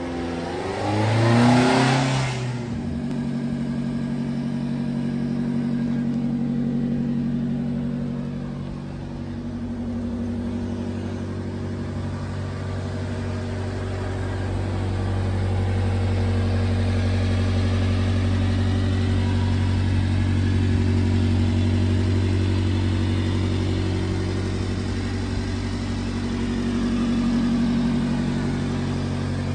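1994 Subaru Sambar truck's small supercharged four-cylinder engine. It gives a brief louder surge about a second in as the truck pulls up, then idles steadily, swelling slightly louder and softer as the microphone moves around the truck.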